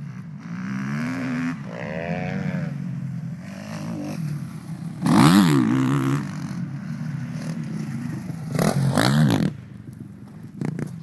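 Four-stroke single-cylinder motocross bikes revving, the engine pitch climbing and falling as the throttle opens and shuts. It is loudest twice, about five seconds in and again about nine seconds in, as a bike comes close. The engines then fade and short scrapes and clatters sound close to the microphone.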